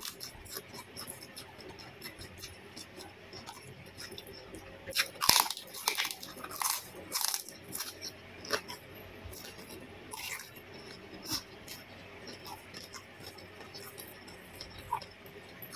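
Close-up eating sounds of a person chewing, with small wet mouth clicks throughout and a run of crisp crunching bites about five to seven and a half seconds in.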